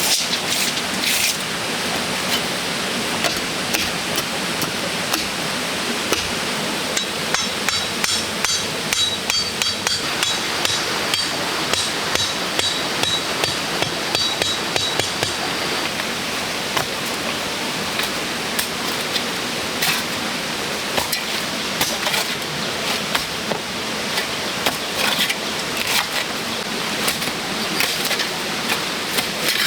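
Irregular sharp knocks and taps, like hammering or striking hard material, over a steady hiss. A faint high repeating chirp runs for several seconds in the middle.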